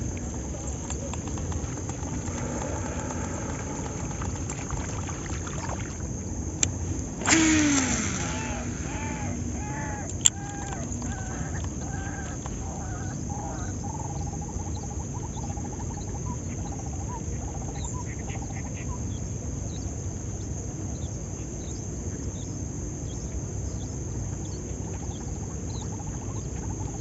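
A fishing cast with a casting reel: a sudden whizz about seven seconds in that drops in pitch as the spool slows, then a sharp click about three seconds later, over steady outdoor background noise.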